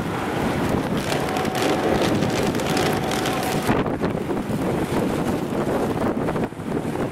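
Strong squall-line wind gusting past an open car door and buffeting the microphone in a steady rushing roar. The hiss thins slightly about four seconds in.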